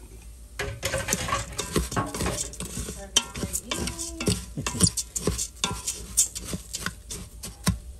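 Wooden spoon stirring uncooked rice in a stainless steel Ninja multicooker pot, the grains scraping and rattling against the metal in quick, uneven strokes that start about half a second in. The rice is being browned in the pot before liquid is added.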